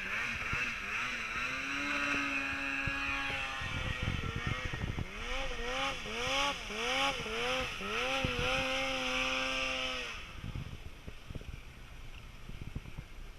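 Snowmobile engine revving in a run of quick throttle blips, rising and falling about once every two-thirds of a second, then held high for a couple of seconds. About ten seconds in the engine sound falls away, leaving faint wind noise.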